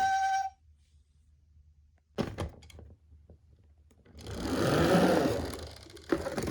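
A toy ambulance's electronic two-tone siren cuts off about half a second in. A few sharp plastic clicks and knocks follow. Then a toy minicar rolls down a cardboard slope, its rumble swelling and fading over about two seconds and ending in a clack.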